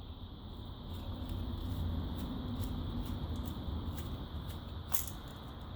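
Desoldering work on a circuit board: light scratching and ticking of hand tools against the board over a steady low hum, with one sharper click about five seconds in.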